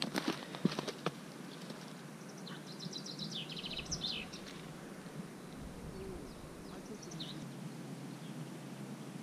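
A few sharp crackles of dry reed stalks underfoot in the first second, then a small songbird twittering in quick high bursts about two to four seconds in, with a few fainter chirps later.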